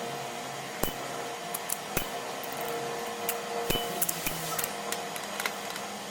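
Metal magnetic EDC slider being worked by hand, giving irregular sharp clicks as its parts snap together, the clearest about one, two and nearly four seconds in, over a faint steady hum.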